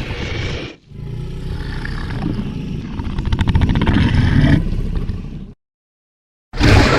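Designed monster vocalisation for a large tree creature: a short growl, then a longer rasping growl that swells, rattles in the middle and cuts off. After a second of silence, a loud roar bursts in near the end.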